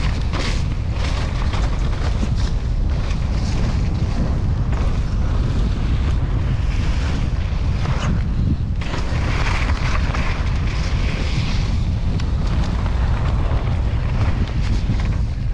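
Wind rumbling steadily on a GoPro microphone during a mountain bike ride, over a shifting hiss from tyres on a wet trail.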